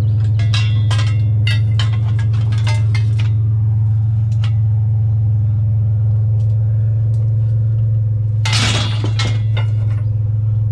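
Pieces of scrap metal clinking and knocking together as they are handled, with a quick run of knocks in the first three seconds and a longer scraping clatter about eight and a half seconds in, all over a steady low hum.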